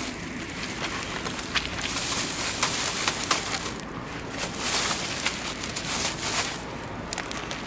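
Oak and beech wood fire burning, with scattered sharp crackles and pops over a rushing hiss of flame that swells twice.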